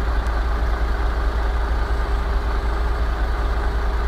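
Heavy truck engine idling steadily, a deep even rumble.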